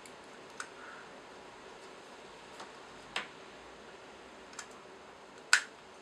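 AA batteries being pressed into a smart door lock's battery holders: five short sharp clicks spread out, the loudest near the end.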